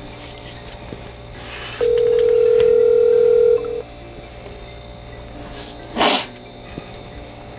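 Telephone ringback tone from a smartphone on an outgoing call: one steady ring about two seconds long, starting about two seconds in, while the call waits to be answered. About six seconds in comes a brief, loud rush of noise.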